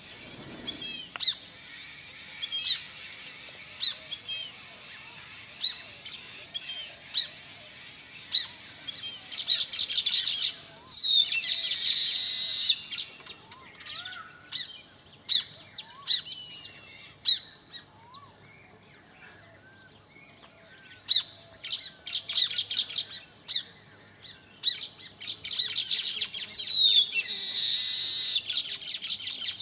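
Birds chirping: a short high chirp repeats about every one and a half seconds, and twice a louder, busier burst of calls with falling whistles breaks in, around the middle and near the end.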